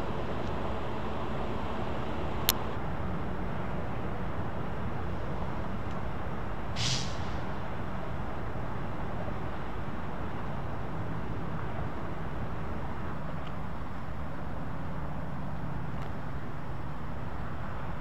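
Steady low rumble of idling vehicle engines, with a sharp click about two and a half seconds in and a short hiss about seven seconds in.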